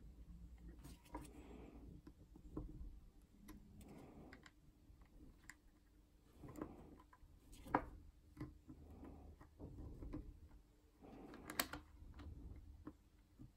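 Faint scattered clicks, taps and short rustles of small tools and wires being handled while soldering a pickup's ground braid to a potentiometer casing, with two sharper clicks about eight and twelve seconds in over a faint steady hum.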